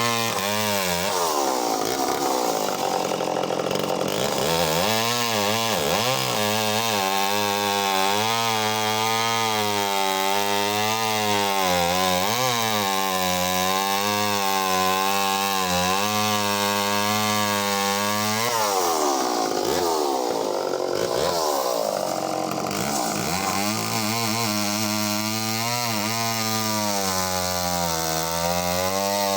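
Echo CS-451VL two-stroke chainsaw running at high revs while cutting through logs. Its pitch wavers under load and drops and recovers several times, most clearly about 19 seconds in.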